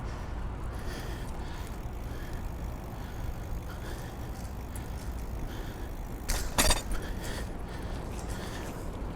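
Bicycle ride heard from a bike-mounted microphone: steady low wind and road rumble, with a brief loud rattle about six and a half seconds in.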